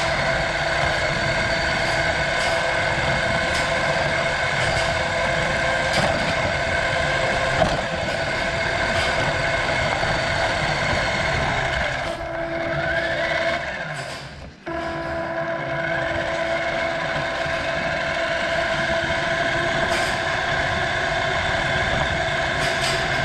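Remote-control toy car's electric motor and gears whining steadily as it drives, the pitch rising as it speeds up. The motor cuts out briefly about halfway through and picks up again, with occasional sharp clicks.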